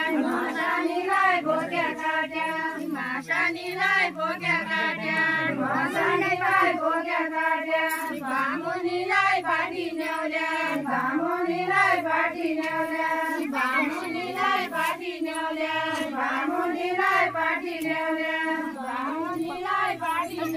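A group of women singing a Deuda folk song together, following one rising and falling melody line that goes on without a break.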